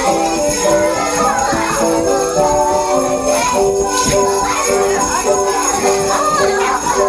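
Sleigh bells shaken continuously in a steady jingle over recorded instrumental music that carries a clear melody.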